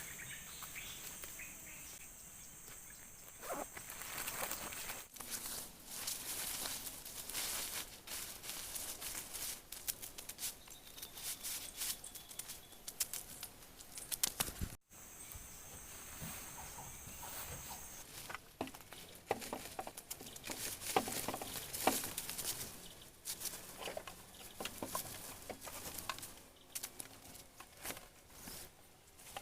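Irregular rustling and tapping in the forest, like movement through leaves or handling gear, with a steady high insect drone at the start and again just after halfway.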